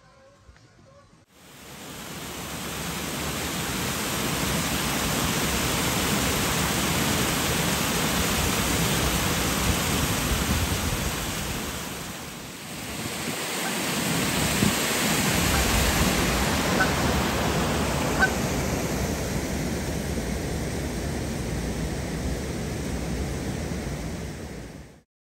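Water pouring over a weir in a steady rush, fading in at the start. After a brief dip about halfway, the rushing goes on with a couple of faint short calls, and it cuts off near the end.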